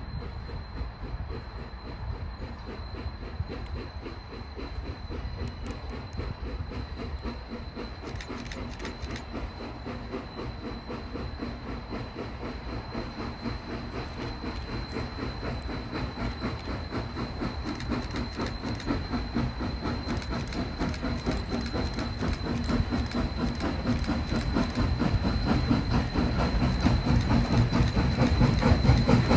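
Valley Railroad 2-8-2 Mikado steam locomotive #40 approaching under steam with its train, its exhaust beat and running gear growing steadily louder as it nears.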